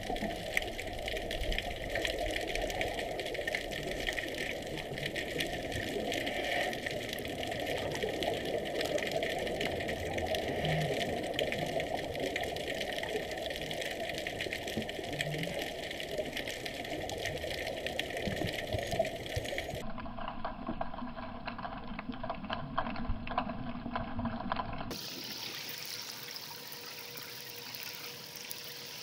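Underwater ambience: a steady muffled hiss dotted with faint crackling clicks. The sound changes abruptly about two-thirds through and again a few seconds later.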